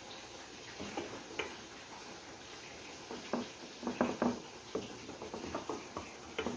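Wooden spatula tapping and scraping against a glass baking dish while spreading a thick creamy sauce: a run of irregular clicks and taps, thickest from about three seconds in.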